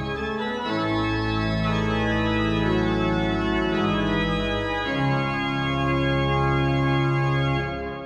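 Church organ playing the slow, sustained chords of a closing Amen. The last chord is held and then fades away near the end.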